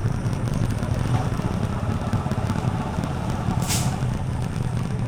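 A TVS Apache RTR 4V's single-cylinder engine running steadily under riding, with wind and road noise. About three and a half seconds in there is one short, sharp hiss.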